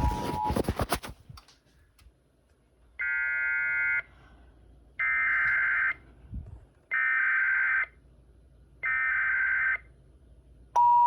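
Weather radio alert coming in: a brief crackle of static, then four screechy digital data bursts about a second long and two seconds apart, the SAME alert header. Near the end the steady warning alarm tone of about 1 kHz begins, announcing a new warning.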